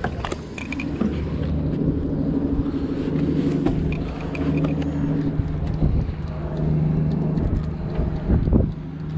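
A boat motor running with a steady low hum. A few knocks sound near the end.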